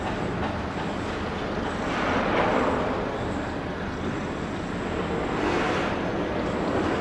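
Steady road traffic rumble, with two vehicles swelling past about two and a half and five and a half seconds in.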